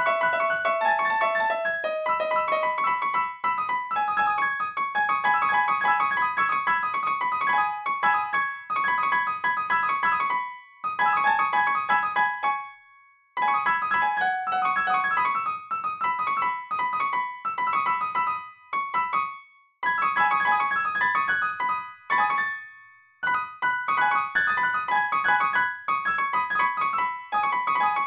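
Piano music, a run of quick, bright notes that stops briefly three times.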